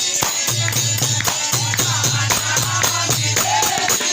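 Devotional bhajan music: fast jingling hand percussion and drum strokes over a steady low sustained note, with brief sliding melodic phrases.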